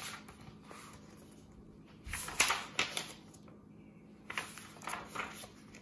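Pages of a hardcover picture book being turned and the book handled: paper rustling with small clicks and knocks, in a few short bursts, the loudest about two to three seconds in.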